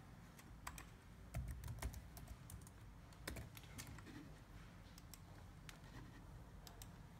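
Faint laptop keyboard typing: a handful of scattered, irregular key taps and clicks as a short file name is entered.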